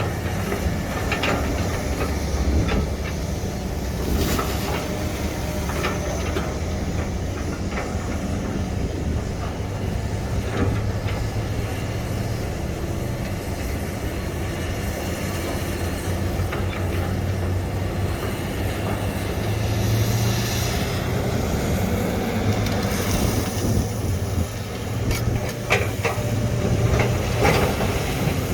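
SANY excavator's diesel engine running steadily under load with a low hum, broken by occasional sharp knocks, several of them near the end.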